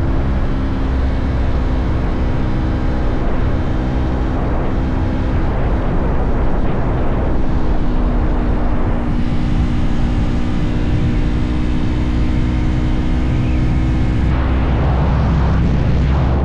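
Motorcycle engine running steadily at cruising speed, its even drone mixed with the rush of riding wind.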